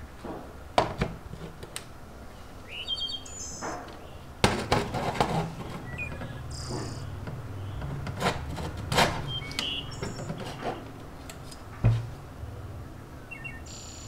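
Light clicks and knocks from handling a metal mechanical keyboard case and its circuit board, several of them sharp, over a steady low hum. Brief high chirps, like birds, come in about four times.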